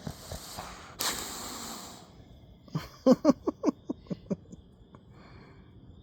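A sleeping puppy breathing noisily: one long, rough breath about a second in. Then comes a quick run of about eight short, sharp grunting squeaks.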